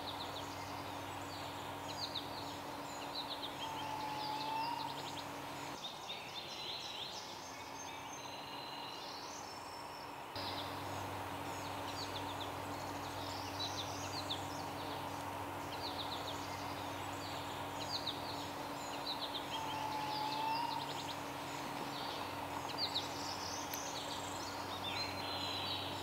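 Spring woodland chorus of many small songbirds, warblers among them, singing quick high notes over and over. A lower curved call sounds twice, and a low steady hum runs underneath.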